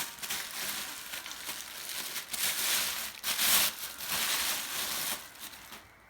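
Packing material crinkling and rustling as a statue piece is pulled out of its shipping box, in irregular crackling bursts that die away about a second before the end.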